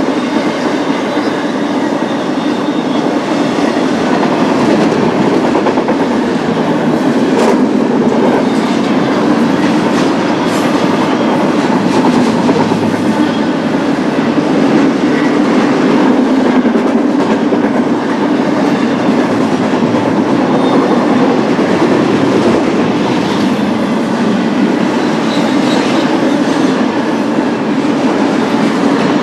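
BNSF intermodal freight train rolling past: a steady rumble of wheels on the rails, with an occasional click.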